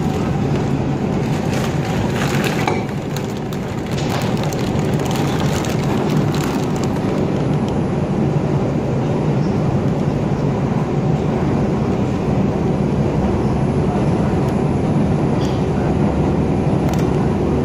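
R142 subway car running between stations, heard from inside: a steady low rumble of wheels on rail, with a run of sharp clicks and clatter over the first several seconds.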